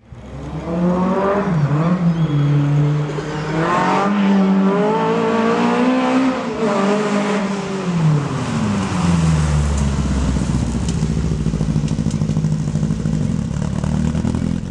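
Rally car engine revving up and down as the car is driven hard through its gears on a test run of a newly fitted gearbox, the pitch climbing and dropping several times. It settles to a lower, steady run in the last few seconds.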